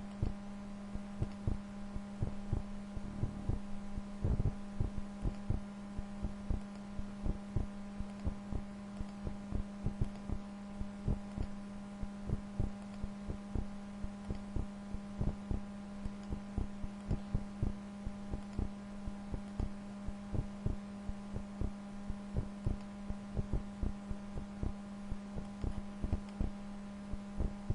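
Computer mouse clicking repeatedly, short sharp clicks a few times a second at uneven spacing, over a steady low electrical hum.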